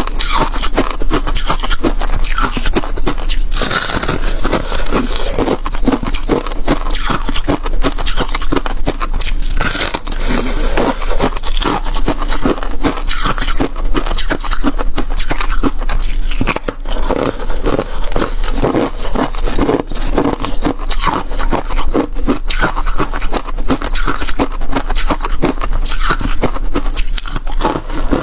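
Flaky frost ice from a frozen bottle being crunched and scraped close to the microphone: a loud, dense, continuous run of fine crackles, briefly thinning about two-thirds of the way through.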